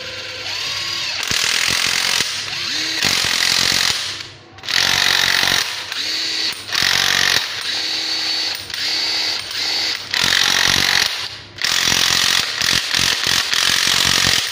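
Hitachi WH14DSL2 14.4 V cordless impact driver run unloaded in about eight trigger bursts, the motor whine rising at each start, with the rattle of its hammer mechanism. In the last couple of seconds the trigger is blipped rapidly on and off.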